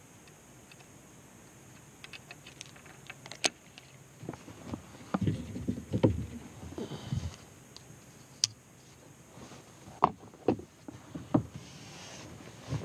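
Handling noises in a plastic kayak: scattered sharp clicks from a baitcasting reel and gear, with a cluster of low thumps near the middle as the angler shifts against the hull, and a few more clicks near the end.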